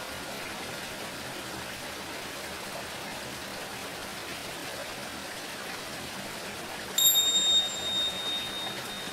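Steady running water, then near the end a single bright, high strike of tingsha cymbals that rings on and slowly fades.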